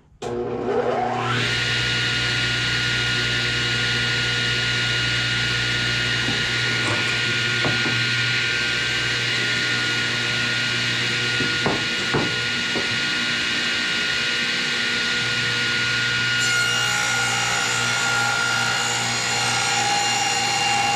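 Portable table saw with a brand-new blade starting up with a rising whine, then running at speed with a steady whine. A few light knocks sound midway, and about 16 seconds in the sound changes as the blade begins ripping through a wooden board.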